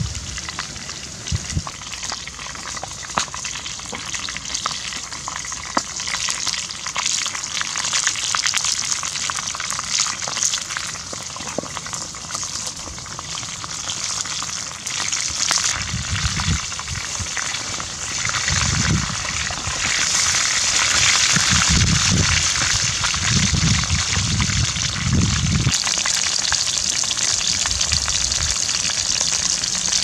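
Chicken deep-frying in hot oil in a pan over a wood fire, a steady dense sizzle and crackle of bubbling oil that grows louder about two-thirds of the way through. A few dull low bumps come in the second half.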